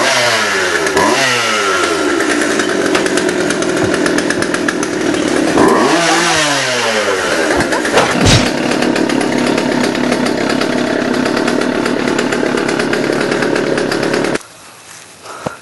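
Two-stroke chainsaw running at high revs, its pitch dipping and climbing again about a second in and again around six seconds in. It cuts off suddenly near the end.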